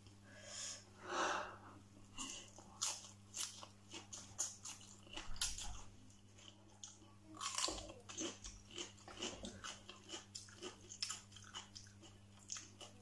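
Close-up chewing of a mouthful of stir-fried instant noodles wrapped in raw salad leaves, with irregular crisp crunches.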